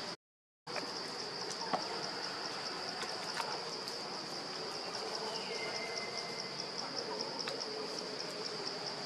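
A steady, high, finely pulsing insect drone from the forest, with a brief cut to dead silence just after the start. A few faint clicks and one short falling whistle sound over it.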